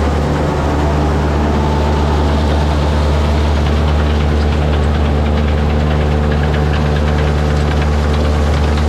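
Silo blower and forage wagon running steadily while the wagon's cross auger feeds chopped corn silage into the blower's auger hopper: a loud, even machine hum with faint rapid ticking over it.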